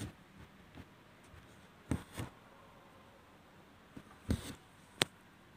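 Hands handling an embroidery hoop and its stretched fabric: a few brief scratchy rustles, then a single sharp click near the end.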